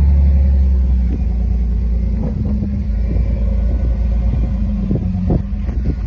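Lifted Jeep Grand Cherokee's engine running at low revs as it crawls over a rutted dirt trail, a steady low rumble with occasional short knocks from about two seconds in.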